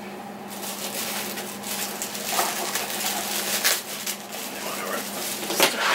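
Red wrapping paper crinkling and tearing as a wrapped box is unwrapped by hand. It is a dense run of crackles starting about half a second in, with a few louder ones.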